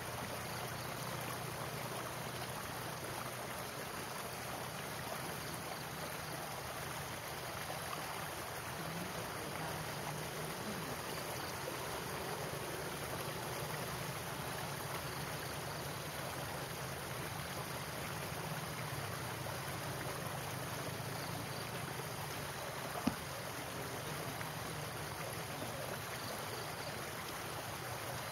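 Stream water rushing steadily over rocks below a culvert outflow, with a single sharp click late on.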